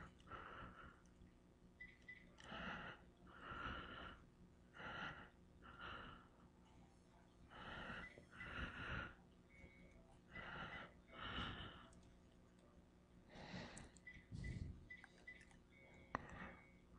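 A person breathing faintly close to a microphone, the breaths coming mostly in pairs about every two and a half to three seconds, over a faint steady hum.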